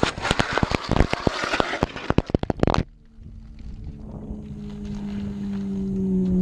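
A crashed motorcycle sliding and tumbling along the road: a rapid clatter of scrapes and impacts that stops abruptly about three seconds in. A steady engine-like hum follows and grows louder toward the end.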